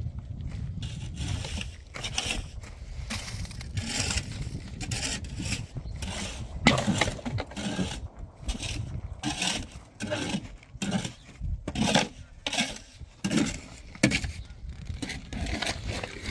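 Hand concreting: a shovel and trowel scraping and crunching through gravel and wet concrete mix, in a run of irregular strokes, some sharper than others.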